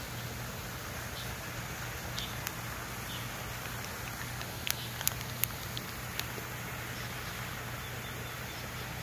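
Steady low hum and hiss of outdoor background ambience, with a handful of light, sharp clicks a little past the middle.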